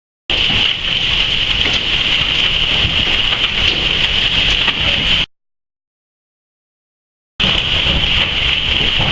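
Hail and heavy rain pelting down: a dense, steady hiss made up of countless small impacts. It breaks off to dead silence for about two seconds in the middle, then resumes.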